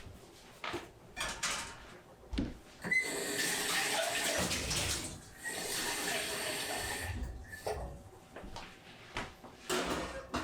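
Kitchen tap running into a sink, turned on twice for a couple of seconds each, with clicks and knocks of handling before and after.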